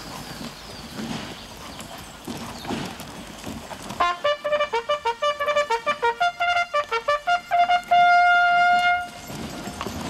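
A military trumpet call: a quick run of short repeated notes begins about four seconds in and ends on one long held note, which stops about a second before the end. Before the call there is only low outdoor noise.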